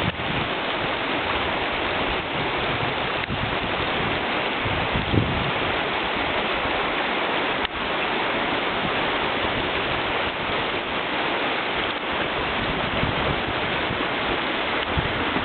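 Steady rush of fast-flowing river water, with a brief low rumble of wind buffeting the microphone about five seconds in.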